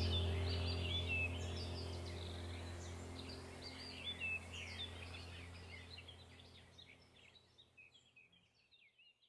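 Birdsong, many quick chirps and trills, over a low steady drone. The whole sound fades out steadily to silence near the end.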